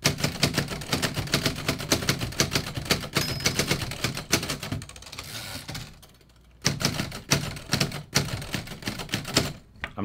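Remington Noiseless Model 7 portable typewriter being typed on quickly: a fast run of key strokes from its noiseless type action, which is less clacky than a standard typewriter. The strokes thin out and pause about five to six and a half seconds in, then resume.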